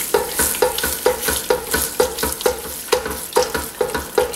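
A spatula stirring a thick mixture of condensed soups and vegetables in a nonstick pot, scraping and clacking against the pot about four times a second, with the mixture sizzling on the burner underneath.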